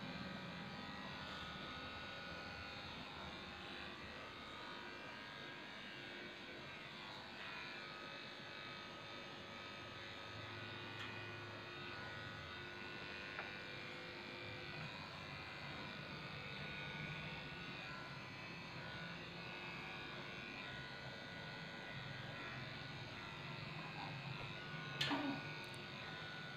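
Electric dog grooming clippers running steadily with a constant hum, shaving down a Shih Tzu's coat. A brief sharp sound comes near the end.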